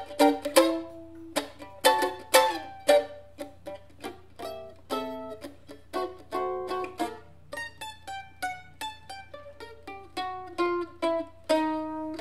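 Mandolin played live. It strikes loud strummed chords in the first few seconds, then picks single notes in a melodic run that quickens toward the end.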